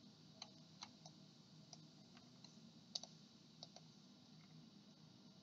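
Near silence with a dozen or so faint, scattered clicks from a computer mouse and keyboard being worked, the loudest about three seconds in.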